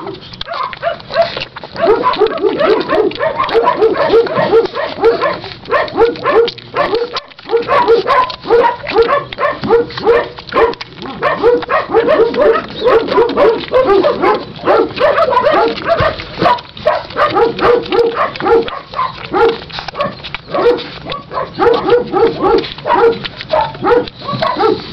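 Puppies feeding, making rapid, short, high squeaks and grunts, several a second.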